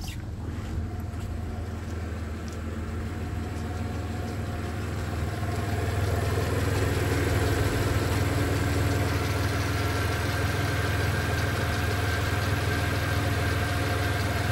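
VW 2.8-litre 30-valve V6 (AHA engine) idling steadily. It is heard first from the driver's seat, then louder and clearer from about five seconds in, at the open engine bay.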